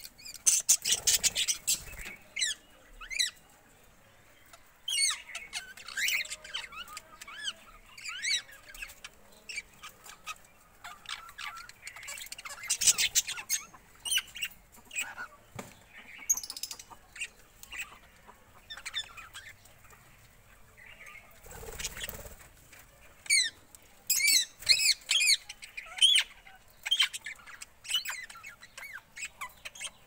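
A mixed flock of cockatiels and budgerigars calling: bursts of quick chirps and harsh squawks, with quieter pauses in between.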